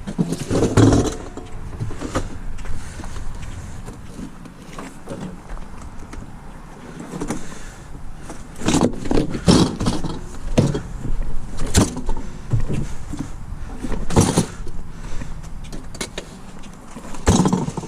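A vehicle engine running steadily in the background, with a scattering of sharp knocks and clanks through the second half.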